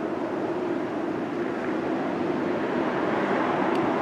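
A steady low rush of distant motor-vehicle noise, slowly growing louder.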